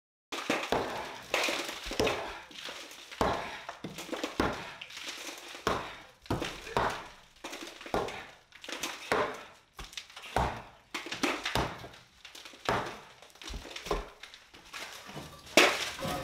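Concrete from a saw-cut foundation opening being knocked loose and pulled out by hand: irregular crunching knocks and scrapes of concrete and rubble, about one every second.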